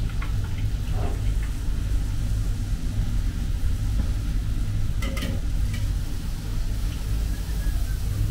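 Steady low rumble of pizzeria kitchen ventilation, with a few light clinks and scrapes of the metal pizza peel and utensils.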